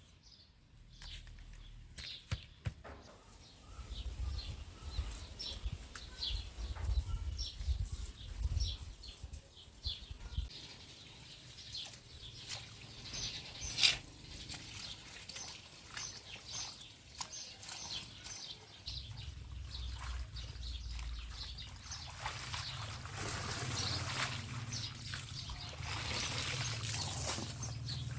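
Small birds chirping repeatedly, with a single sharp click about halfway through. A steady hiss, like water pouring or trickling, builds over the last several seconds.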